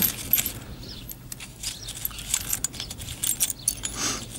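Steel flat washers and split spring lock washers clinking and jangling in a metal tin as a hand stirs through them, a steady run of small, sharp, irregular clicks.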